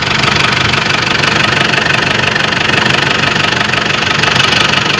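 Ford Ranger diesel engine running at a steady idle with an even, loud clatter, now firing after a crank-no-start fault.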